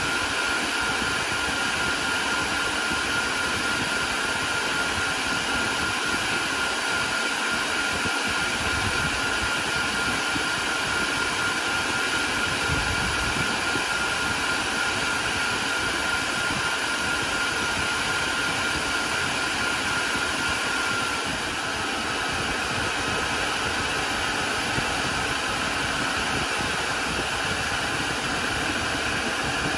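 Cooling fans of a Dell Compellent SCV2020 storage array running with a steady rushing whir and whine. The whine steps down slightly in pitch about two-thirds of the way through, as the fans slow a little.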